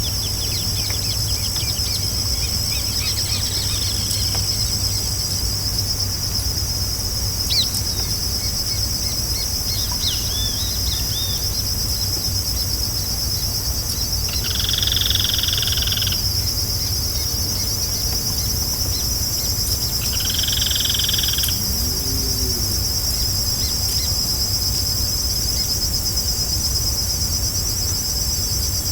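Forest night-time-style ambience of a steady, high-pitched insect chorus, with a few short bird chirps in the first part. Two louder animal calls, each about a second and a half long, come about six seconds apart.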